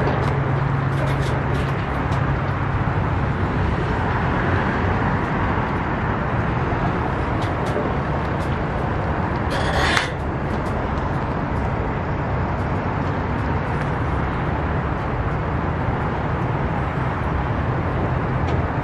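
Pickup truck engine running steadily close by, with a low hum under an even noise; one short knock about ten seconds in.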